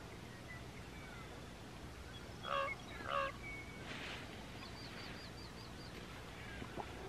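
Crow giving two hoarse, honking caws about half a second apart, an odd call that sounds like an old car horn. A small bird's quick run of about six high notes follows near the end.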